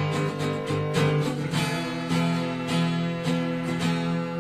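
Acoustic guitar strumming chords in a steady rhythm, an instrumental passage of a folk-style song.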